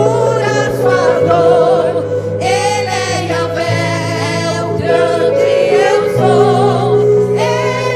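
Women's vocal group singing a gospel worship song in Portuguese, with vibrato, over sustained bass and keyboard accompaniment.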